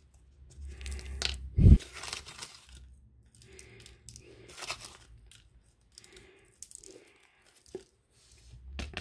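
Close-up handling noise: irregular rustling and crinkling as crumbled bits are packed into a small tube by hand, with a dull knock a little under two seconds in.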